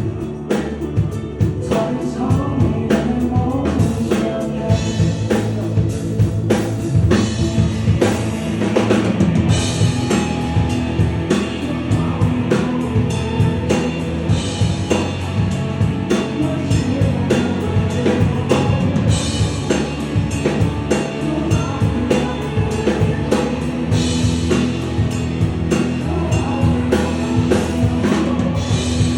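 A rock song playing, with a singing voice over a steady drum kit beat and bass.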